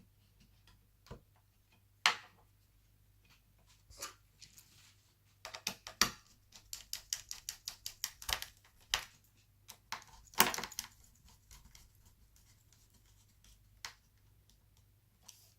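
Sharp clicks and taps of laptop parts being handled as the processor cooling fan is fitted into an Alienware M17x R2: scattered single clicks, a quick run of them in the middle, and a loud knock about two-thirds of the way through.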